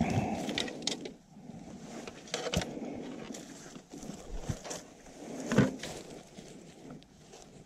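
Handling noise of a wire foot snare being set: dry leaves and soil rustling, and the steel wire cable and trap parts clinking and knocking, with a few louder knocks among scattered small clicks.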